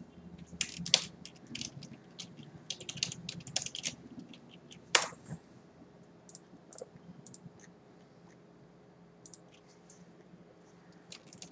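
Computer keyboard being typed on, quick runs of keystrokes for the first four seconds or so, then one louder click about five seconds in and only scattered keystrokes after that.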